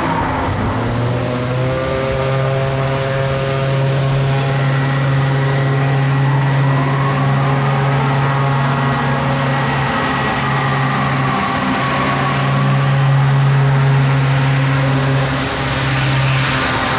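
Pendulum swing ride's drive machinery running with a steady motor hum, its pitch dropping right at the start and later slowly rising and falling again as the gondola arm swings.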